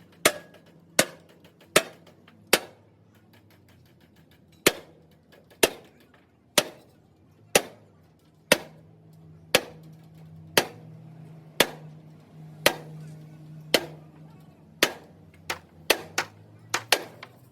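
Hammer blows on steel, about one strike a second, each ringing briefly, with a pause of about two seconds early on and quicker strikes near the end. A faint steady low hum runs underneath.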